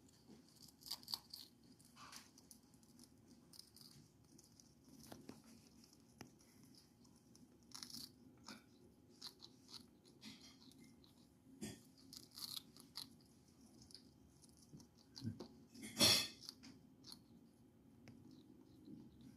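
Eclectus parrot biting and crunching a crisp french fry in its beak: irregular small crunches and crackles, with one louder crunch near the end.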